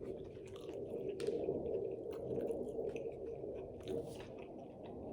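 A person chewing food with the mouth close to the microphone, with moist mouth smacks and sharp clicks, the loudest about a second in and near the end.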